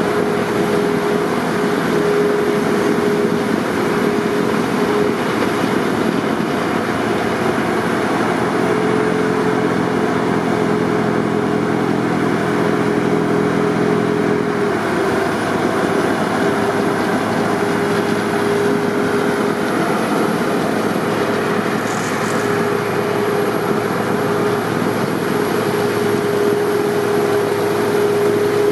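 Heavy snowblower loader working: a diesel engine and blower running at a loud, steady rush with a steady whine. A lower droning engine note joins about eight seconds in and drops away about halfway through.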